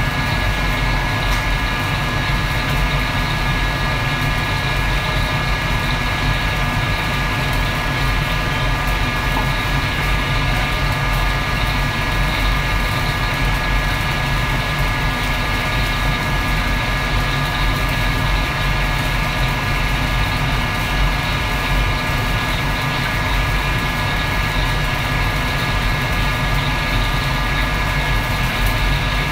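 Loud, steady roar of a restaurant wok station, with the gas wok burner and the extractor hood fan running together and a few steady whining tones over them.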